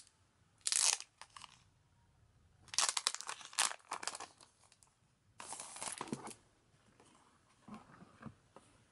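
Stiff clear plastic sleeve crinkling and rustling as paper sheets and photo cards are slid out of it, in three short bursts of handling, then fainter rustles near the end.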